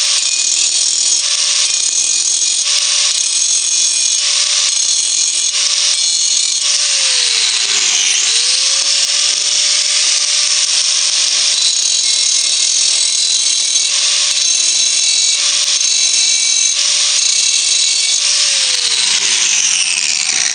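DeWalt angle grinder grinding a spot weld off a stainless steel pot lid, the disc biting in short passes about once a second. Its motor winds down and is started again about eight seconds in, and winds down again near the end.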